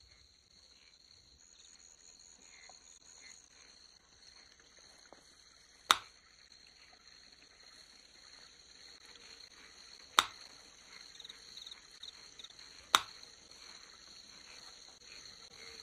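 Three sharp computer mouse clicks, a few seconds apart, over a faint steady high-pitched whine and hiss.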